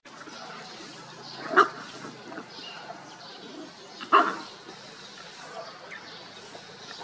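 A puppy barking twice, two short sharp barks about two and a half seconds apart.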